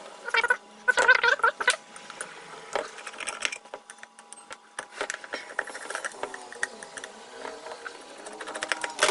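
Metal parts of a ceiling fan clinking and clicking as the fan is taken apart by hand, with a cluster of louder ringing clanks in the first two seconds and lighter clicks and taps after.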